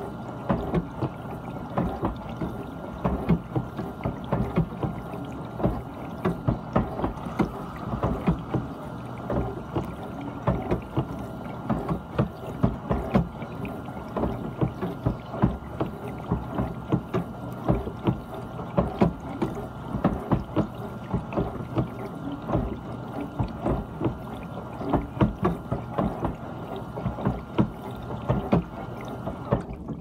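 GE dishwasher in its wash phase: water splashing and sloshing inside the tub in uneven bursts over a steady pump hum. The splashing cuts off abruptly just before the end.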